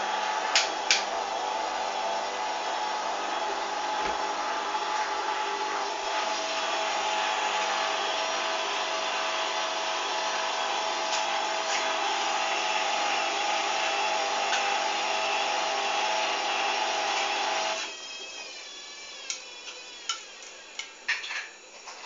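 Hoover front-loading washing machine during its final rinse, giving off a steady hum with hiss that cuts off abruptly about 18 seconds in, followed by a few sharp clicks.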